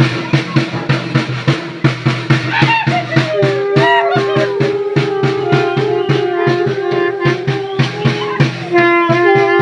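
Carnival music: a drum beating a fast, steady rhythm, with a wind instrument holding long notes from about three seconds in.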